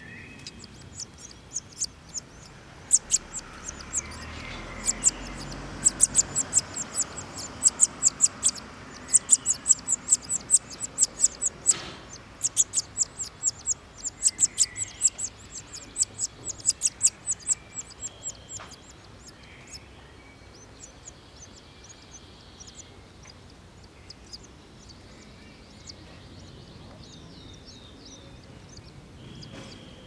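Common linnet nestlings begging with rapid, very high-pitched cheeps while being fed at the nest, in dense runs that stop about two-thirds of the way through, leaving only a few faint chirps.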